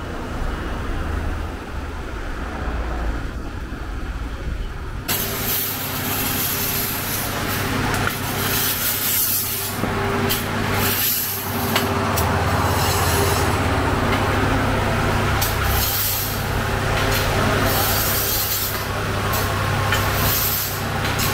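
Street traffic ambience, then from about five seconds in a steady low hum with irregular rough scraping, as a long iron rake is dragged through the hot pebble bed of a sangak bread oven to level the stones for a new batch.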